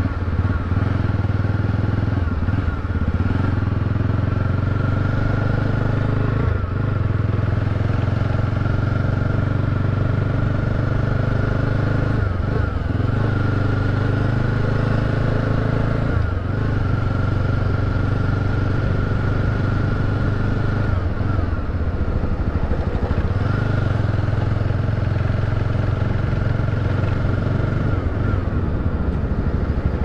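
Motorcycle engine running steadily as it rides along, its note dropping briefly and recovering several times.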